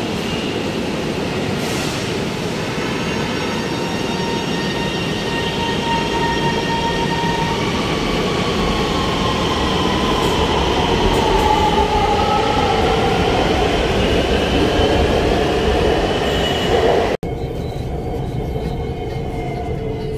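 Electric metro train of the Lahore Orange Line running along a station platform: a steady rumble of wheels on rail under an electric motor whine that rises and falls in pitch. About three-quarters of the way through the sound cuts to a quieter steady running noise.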